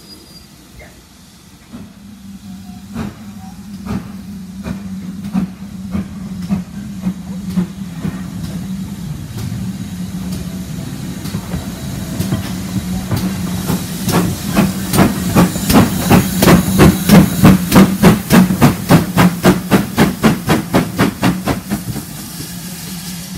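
Steam locomotive 6990 Witherslack Hall, a GWR Modified Hall 4-6-0, pulling away under steam. Its exhaust chuffs start about a second apart and quicken steadily to about three a second, over a steady hiss of steam. The chuffs are loudest in the last third and die back near the end.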